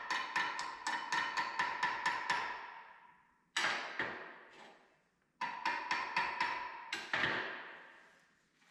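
Quick hammer strikes on the steel of a welded feed roller arm, about five a second, each leaving a metallic ring. The strikes stop about two and a half seconds in and the ring dies away. Two single strikes follow, then a second run that ends about seven seconds in and rings away.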